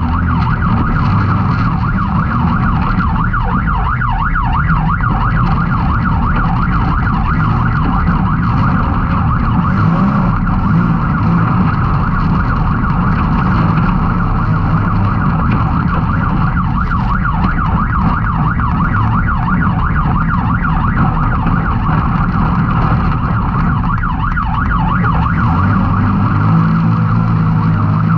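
Can-Am Maverick X3 side-by-side's turbocharged three-cylinder engine running hard at race pace. The revs rise and fall continuously, with a high wavering whine over a low engine rumble.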